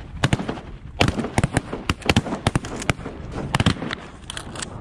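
A rapid volley of shotgun blasts from several hunters firing together, more than a dozen shots in under five seconds, some close and loud and others fainter.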